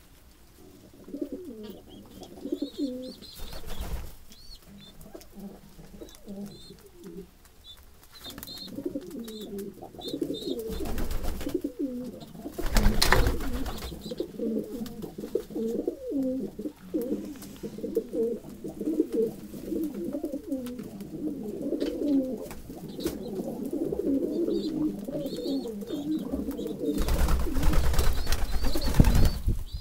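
A flock of domestic pigeons cooing, many overlapping low, wavering calls. Several brief noisy flurries break in, the loudest near the end, where a pigeon beats its wings.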